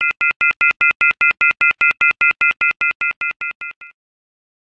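Rapid electronic beeping over an intro logo: short beeps of the same high, steady tone, about six a second. The beeps swell up, then fade away and stop about four seconds in.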